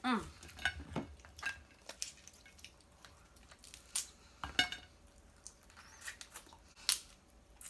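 Snow crab legs being snapped apart and the meat sucked out of the shells: an irregular run of sharp cracks and clicks with short wet slurping sounds.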